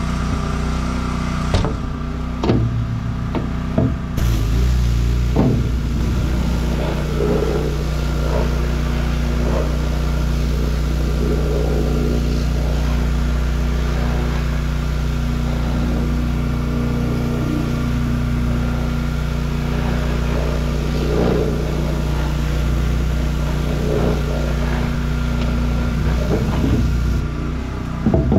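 Gas pressure washer's engine running steadily. About four seconds in, after a few clicks, the engine takes on load and the hiss of the high-pressure spray starts and keeps going.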